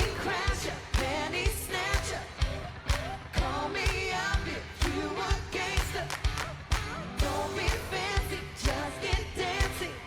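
Background pop song with a singing voice over a steady kick-drum beat, about two beats a second.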